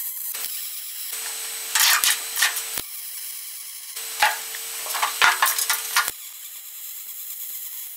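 MIG welder arc crackling and hissing in stop-start runs of one to two seconds, with a steady hum under each run. The trigger is being pulsed while welding a roll-cage foot to thin floor steel, to keep the heat down and the floor from warping.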